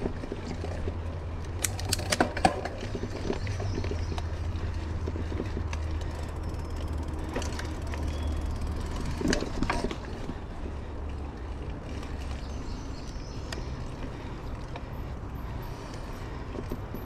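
Mountain bike riding over a dirt trail: a steady low rumble of tyres and wind on the microphone, with sharp rattles and knocks from the bike over bumps about two seconds in and again near ten seconds.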